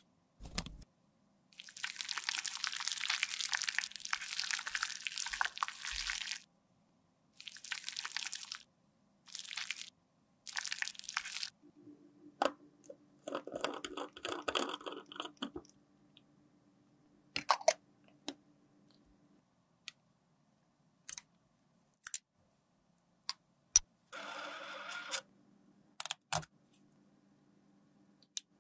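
Close-up handling sounds of liquid foundation. A single sharp snip just after the start, then long crackling, squishing rushes as product is squeezed out of a plastic piping bag. Later come a few sharp plastic clicks and snaps as a pump head is pushed onto an airless pump bottle.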